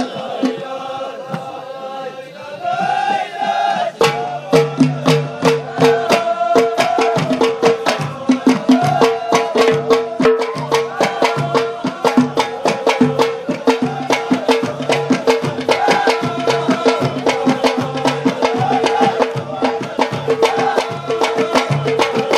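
Amazigh folk music. Hand-held frame drums break into a fast, steady rhythm about four seconds in, under a group of men chanting together.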